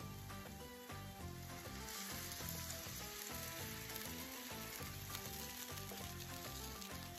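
Sugar syrup poured into hot fried semolina and oil, sizzling loudly, the hiss swelling about two seconds in, over background music.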